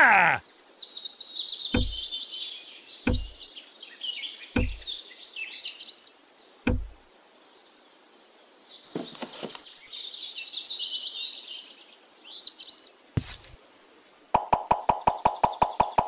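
Birds chirping and singing throughout, with single knocks about two, three, four and a half and seven seconds in, and a fast, even run of clicks near the end.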